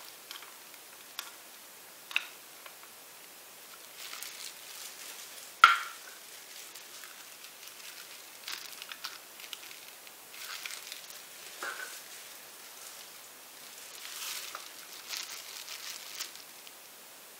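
Handling noise from painting supplies: scattered rustles, light clicks and small knocks as cups and paint bottles are picked up and set down by gloved hands, with one sharp knock about six seconds in.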